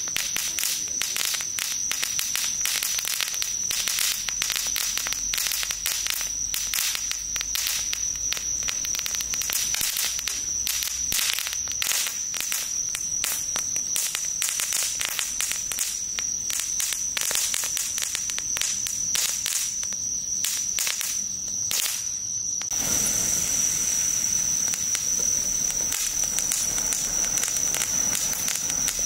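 Firework fountains from a 'Lighthouse' compound of red and green flash fountains burning one after another, with a dense, rapid crackling of popping sparks. About three-quarters of the way through, the crackle gives way to a steadier rushing hiss as a large red flash fountain sprays.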